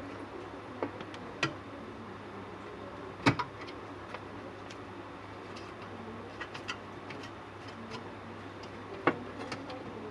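Scattered clicks and knocks at uneven intervals, loudest twice, about three seconds and nine seconds in, over a steady low hum.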